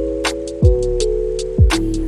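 Background music with a steady beat: held synth chords over a deep kick drum about once a second, with light ticking hi-hats between the kicks.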